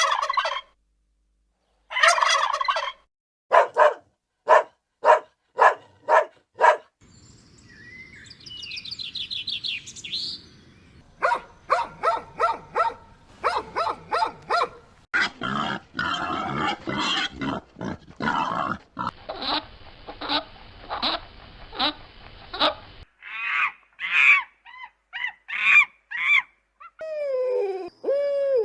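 Domestic fowl calling: runs of short, repeated calls in several separate bursts, with a break or change between passages, among them calls that sound like turkeys gobbling.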